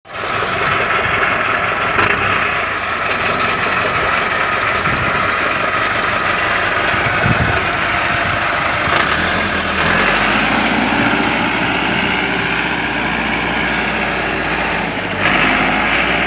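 Massey Ferguson 385 4x4 tractor's four-cylinder diesel engine running steadily and loudly as the tractor drives, with a deeper rumble from about ten seconds in.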